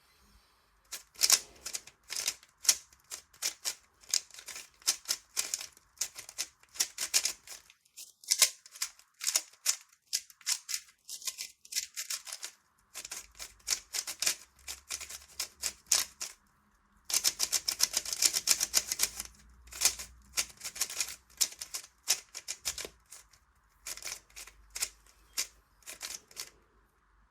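A 3x3 speed cube, the MoYu HuaMeng YS3M, being turned in quick bursts of plastic clicking and clacking, with short pauses between bursts. There is a dense run of fast turns about two-thirds of the way through.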